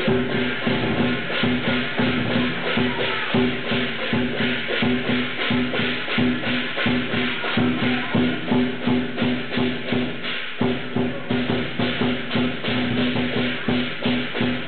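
Chinese lion dance percussion: drum, cymbals and gong played together in a fast, steady beat, with a low ringing tone sustained under the strikes.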